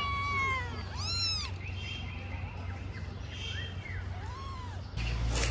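Kittens meowing: a run of about five short, high-pitched calls that rise and fall in pitch, the loudest about a second in, over a steady low background hum.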